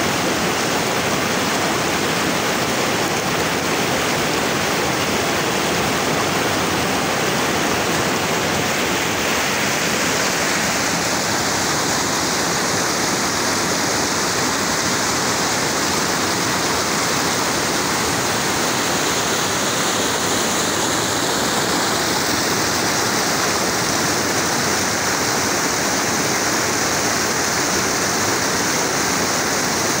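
Mountain river rushing over boulders in white-water rapids: a loud, steady noise of water, shifting slightly in tone about ten seconds in.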